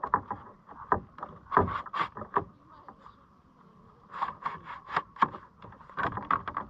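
Irregular knocks, taps and scrapes of a just-caught trout and gear being handled in a fishing kayak, in two clusters with a short lull about three seconds in.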